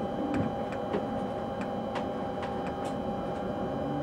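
Electric train's driver cab while running: a steady electrical hum over running noise, with about a dozen irregular sharp ticks.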